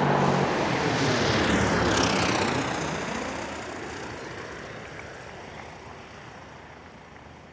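Small airplane flying close past. Its engine is loudest for the first couple of seconds, then its pitch drops as it goes by and it fades steadily away.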